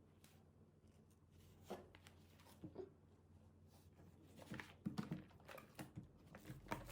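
Near silence in a small room, broken by a few faint taps and rustles of paper items being handled, more frequent in the second half.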